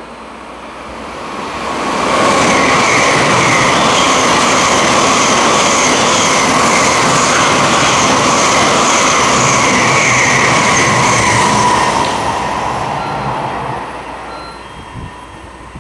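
Tokaido Shinkansen bullet train passing through a station at speed: a rush of noise that builds over the first couple of seconds, stays loud for about ten seconds as the cars go by, then fades away.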